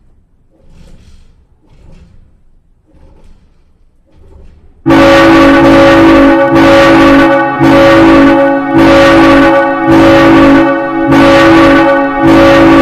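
Faint, soft pulses at first, then about five seconds in a loud old church bell suddenly starts ringing, its overlapping strokes coming a little more than once a second with a rich, lingering hum.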